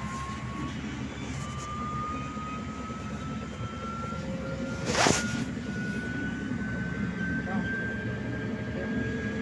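Trolleybus electric traction drive whining, its pitch rising slowly and steadily as the trolleybus picks up speed, over the low rumble of the ride. A short, loud rush of noise about five seconds in.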